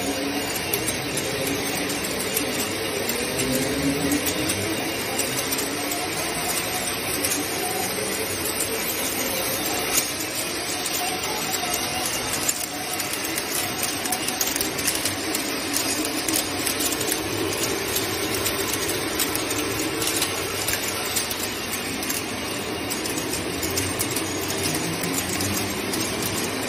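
Automatic spiral stone bead milling machine running: a steady mechanical noise with a dense clatter of many small clicks as stone beads are ground between its diamond plates and spill out.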